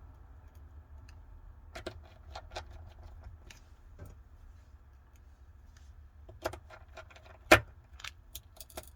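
Scattered small clicks and taps of repair tools and small parts against a Samsung Galaxy Note 20 Ultra's frame during reassembly, with one sharper click about seven and a half seconds in.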